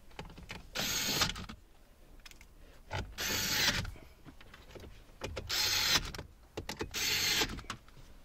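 Power screwdriver driving the four Phillips-head screws that hold a car radio head unit in the dash: four short runs, each under a second, with brief pauses between them.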